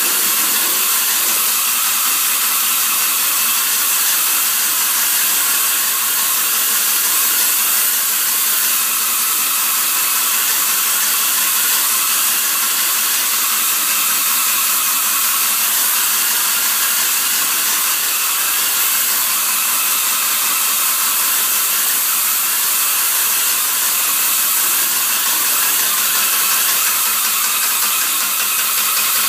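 Hose-fed paint spray gun hissing steadily as it sprays, without a break.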